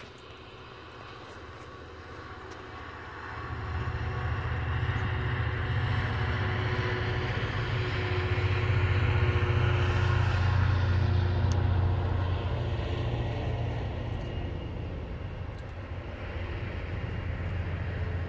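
Class 66 diesel locomotive's two-stroke V12 engine drones louder from about three seconds in and is loudest around ten seconds in as it passes at the head of a long engineering train. After that it eases, and the long rake of wagons rolls by with a steady rumble.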